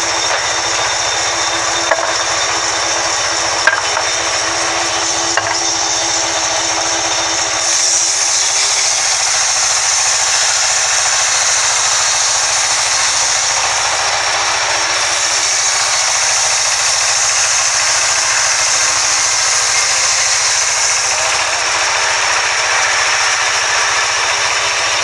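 Sawmill band saw running steadily, its vertical blade sawing lengthwise through a log with a loud high hiss that grows louder about eight seconds in. Two short sharp knocks near the start.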